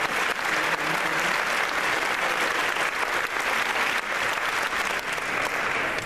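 An audience applauding, many hands clapping at once at a steady level.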